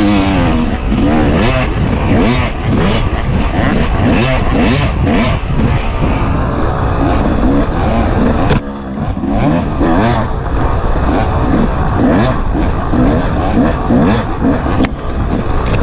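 Dirt bike engine heard on board, revving up and down with constant throttle changes as it rides a trail, over rushing wind noise. The engine eases off briefly about eight and a half seconds in.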